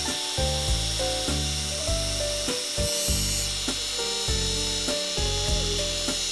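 Background music: held melody notes over a bass line that changes about every half second, with a steady high hiss underneath.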